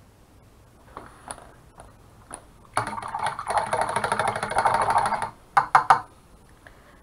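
Paintbrush being rinsed in a water cup: a fast clicking rattle as it is swished against the cup's sides for about two and a half seconds, then two quick taps. A few light clicks come before it.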